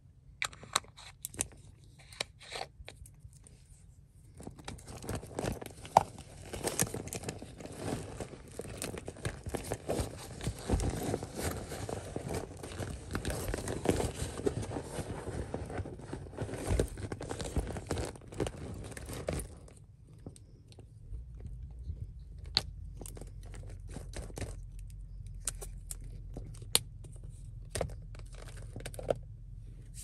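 Hands rummaging through a zippered purse. Scattered clicks at first, then several seconds of dense rustling and crinkling with sharp clicks, then scattered taps and clicks again near the end.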